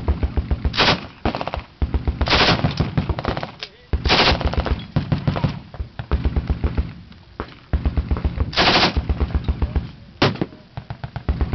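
Belt-fed machine gun firing on full automatic in repeated short bursts, each a rapid string of shots lasting a second or two, with brief pauses between bursts.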